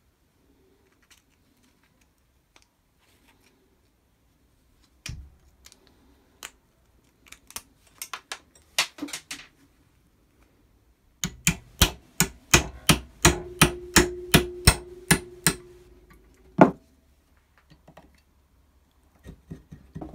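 Hammer tapping on a metal part: light scattered clicks and knocks, then a run of about fifteen quick strikes, roughly three a second, with a ringing note under the middle ones, ending in one harder blow.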